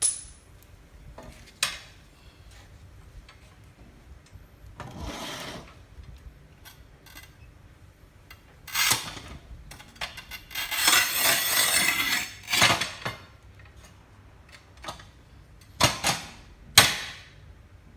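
Manual tile cutter at work on ceramic tile: clinks and knocks of tile and metal, then a scraping of about two seconds as the scoring wheel is drawn across the tile, followed by a few sharp cracks near the end.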